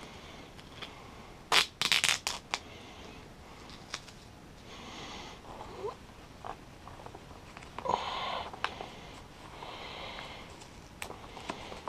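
Tape being pulled off the roll and torn, with a plastic bag crinkling under the hands, as sharp spots on a rifle are padded for vacuum sealing. A few sharp snaps come about two seconds in, then short rustles.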